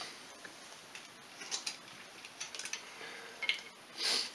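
Light scattered clicks and metal ticks from the cam chain and cylinder head being handled as the head is worked off the engine, with a short rustling scrape about four seconds in.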